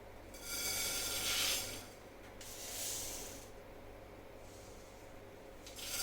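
Mustard seeds tipped from a spoon into a hot, dry pot, two spoonfuls one after the other, each a brief rattling hiss of small seeds, with a third similar rustle near the end.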